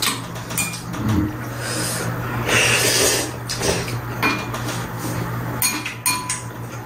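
Chopsticks clinking and tapping against ceramic bowls and a metal serving tray as two people eat ramen, with a few seconds of noisy noodle slurping about two and a half seconds in.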